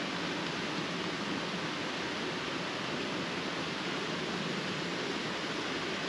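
Flowing water rushing steadily: an even, unbroken hiss.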